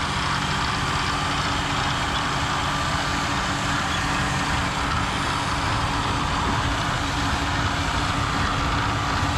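A 210-horsepower tractor's diesel engine running steadily under load as it pulls a root-removal machine through the field, a constant drone with a broad rushing noise over it.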